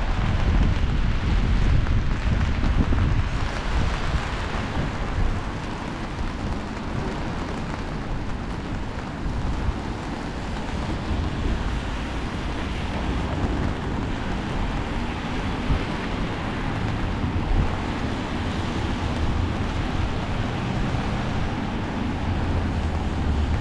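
Wind buffeting the microphone in a low, uneven rumble, over a steady hiss of city traffic on wet streets.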